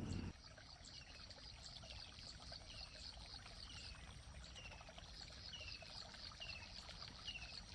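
Faint trickle of water in a small field pool, with a short falling chirp repeating about once a second.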